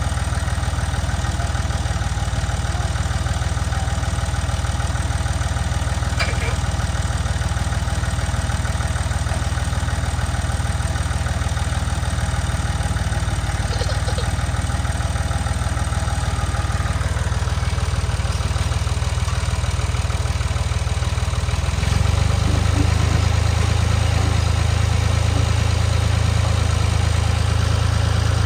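Massey Ferguson 148 tractor's three-cylinder diesel engine idling steadily. About 22 seconds in it picks up to a louder, higher running speed, as for working the hydraulic log-lifting attachment.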